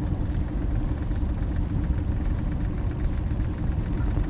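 Boat motor running steadily at low speed, a low, even engine rumble.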